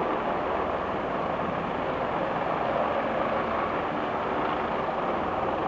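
Aircraft engines running, a steady rushing noise that holds level throughout.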